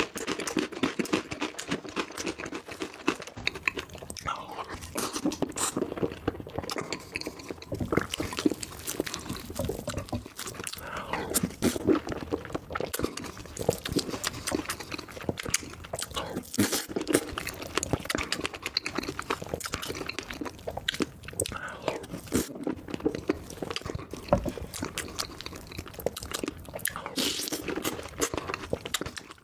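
Close-miked eating sounds: a person chewing and smacking big spoonfuls of soft strawberry cake soaked in condensed milk and milk, with a continuous, irregular stream of mouth clicks and chews.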